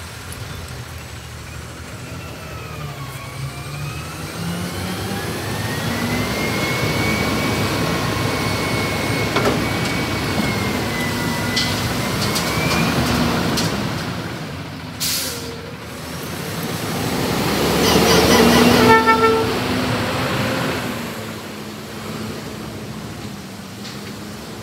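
Autocar Xpeditor garbage truck driving off, its engine and drivetrain running with a whine that rises and falls in pitch. A short air hiss comes about 15 s in. A louder burst of air hiss with a brief pitched toot comes near 19 s, the loudest moment, then the truck's sound fades down.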